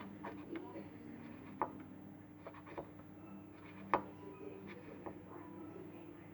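Faint scattered clicks and light taps of handling at a workbench, the sharpest about four seconds in, over a steady low hum.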